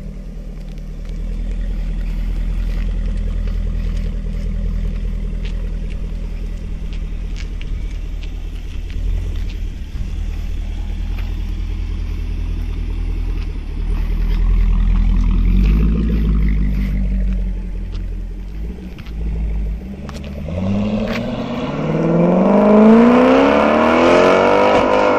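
Jaguar XKR's supercharged 5.0-litre V8 through a Spires Stage 3 active exhaust, idling steadily, with a brief rise in revs around the middle. About twenty seconds in it accelerates away, its pitch climbing steeply in the loudest part of the clip.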